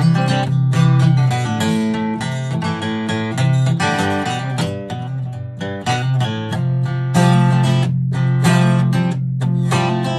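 Acoustic guitar strummed in a steady, even rhythm, chords ringing with no voice over them.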